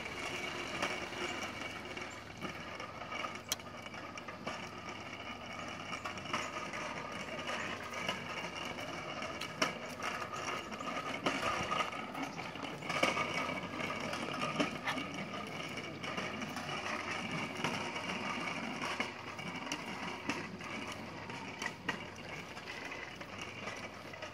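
A pedalled vehicle rolling along, its chain and gear mechanism rattling steadily, with scattered sharp clicks.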